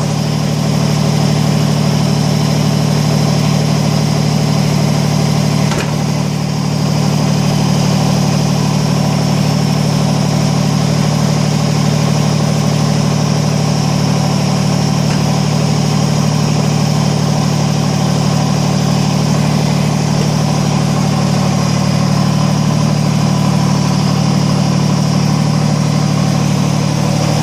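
Kubota BX25D tractor's three-cylinder diesel engine running steadily, with a brief dip in loudness about six seconds in.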